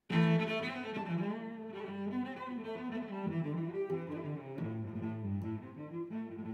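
Background music of low bowed strings playing a melody of held notes.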